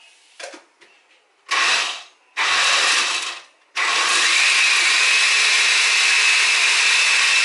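Countertop blender pureeing strawberries with water: two short pulses, then the motor runs steadily from about four seconds in.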